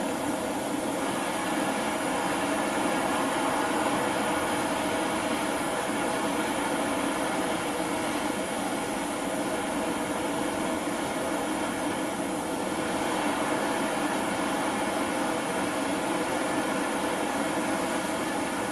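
LPG/propane blowtorch flame burning steadily, turned down low, heating metal for silver soldering.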